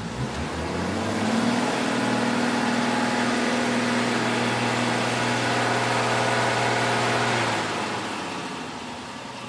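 Csepel D566 off-road truck's diesel engine revving up in the first second or so, then held at steady high revs for several seconds as the truck pushes through mud and water, easing off near the end.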